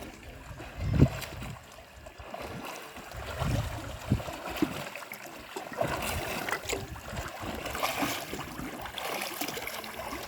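Water sloshing and splashing as a beginner swimmer paddles through it, with a low thump about a second in.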